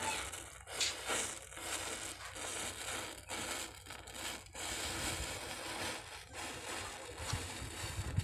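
Matchsticks in a chain flaring one after another as the fire runs along the row, an even fizzing hiss with irregular crackles.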